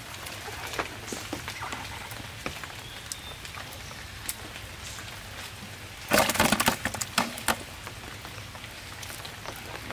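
A fish thrashing in a plastic bucket: a loud clatter of rapid knocks and splashes about six seconds in, lasting about a second and a half. Around it, faint scattered clicks and rustles from the cast net being handled.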